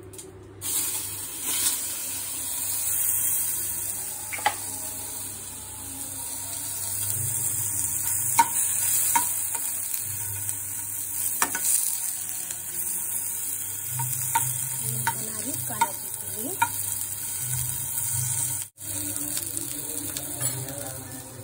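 Paneer cubes frying in hot oil in a pan: a steady sizzle with scattered sharp clicks. The sound drops out for a moment near the end.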